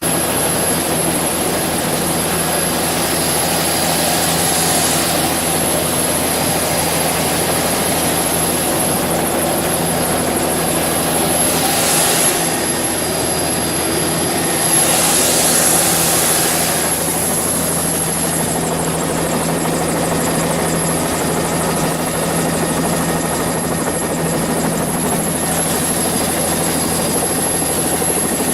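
Helicopter running steadily in flight, its engine and rotor drone holding a constant pitch with a high whine on top, and a few brief swells of rushing noise.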